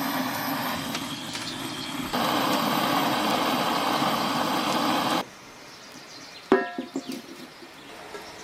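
Hand-held gas torch on a blue gas cartridge blowing its flame into the kindling of a wood stove: a steady hiss that gets louder about two seconds in and stops abruptly about five seconds in. About a second later comes a single sharp metallic clank that rings briefly.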